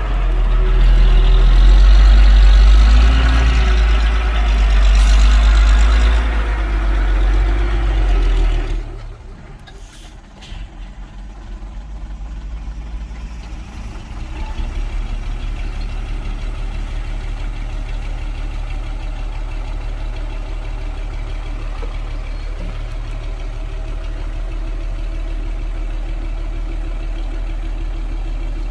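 Heavy diesel engine of a construction machine working hard and loud for about the first nine seconds, then dropping off suddenly and settling into a steady idle.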